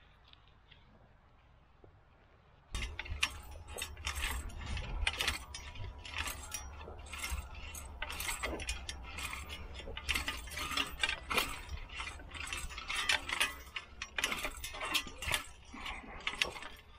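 Single-wheeled push hoe rattling and scraping with many quick irregular clicks as it is pushed through dry, cloddy soil, starting about three seconds in. The clods are too rough for it to cut a clean row.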